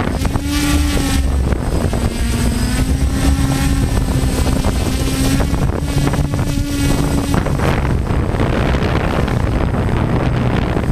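Electric motors and propellers of a DJI F550 hexacopter, heard from the camera on board: a steady droning tone that wavers slightly in pitch, under heavy wind rush on the microphone. About seven seconds in, the propeller tone drops away and the wind noise takes over.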